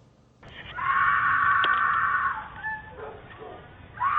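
A woman's terrified screams recorded through a doorbell camera's microphone: one long high-pitched scream starting about a second in and lasting nearly two seconds, then quieter cries, and a second scream beginning near the end.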